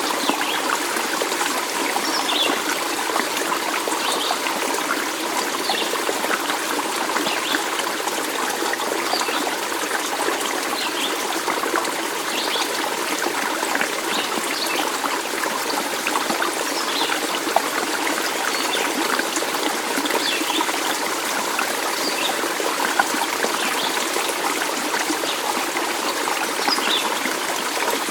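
Stream water trickling and running steadily, with brief high-pitched plinks every second or two.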